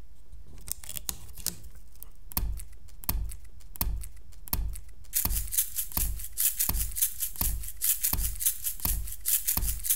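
A looped rhythm played on office supplies: plastic clicks and taps from a tape dispenser, settling into a steady thump with a click about twice a second. About five seconds in, a dense metal rattle joins it, from paper clips shaken in a container like a maraca.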